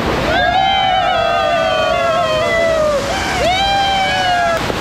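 Several people shouting together in two long, high yells whose pitch slides slowly downward, the first lasting a couple of seconds and the second, shorter, starting about three and a half seconds in, over the steady rush of a waterfall.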